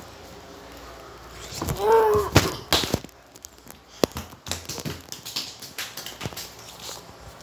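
A short voice-like call that rises and falls in pitch about two seconds in, followed by scattered clicks, taps and knocks of a handheld phone being handled and bare feet on a tiled floor.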